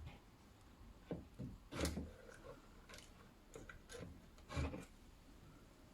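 Faint, scattered scrapes and clicks of an electric pressure cooker being handled and taken apart, its parts rubbing and knocking, with the loudest near the middle and again later on.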